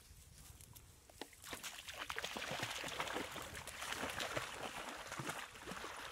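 A dog splashing through shallow water as it wades and swims out, starting about a second and a half in.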